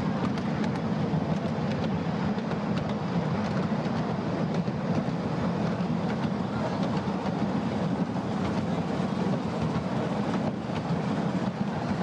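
Riding aboard a 7¼-inch gauge miniature steam railway train: the steady rumble of the passenger cars' wheels running on the track, with scattered light clicks.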